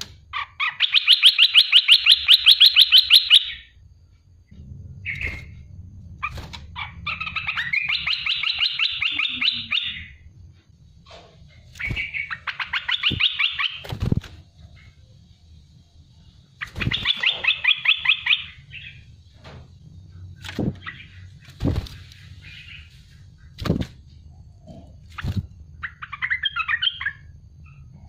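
Olive-winged bulbul calling in a run of rapid, harsh trilled bursts ('tembakan'), about five of them, each lasting one to three seconds, the first and longest near the start. Sharp single knocks come between the bursts.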